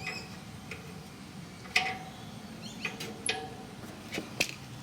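Several sharp, separate clicks and knocks of small metal parts being handled as a lock is fitted back onto a ride-on mower's cowling.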